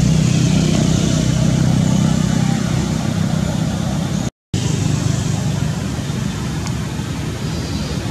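A steady low motor hum, like an engine running, with a hiss over it; it cuts out for a split second about four seconds in.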